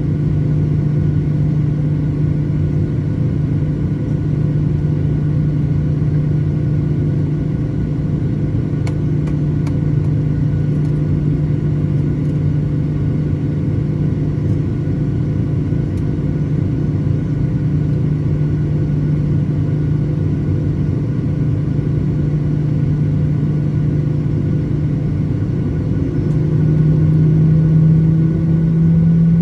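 Steady drone of the Boeing 737-900ER's CFM56-7B turbofan engines, holding a constant low hum. Near the end the hum steps up slightly in pitch and grows louder.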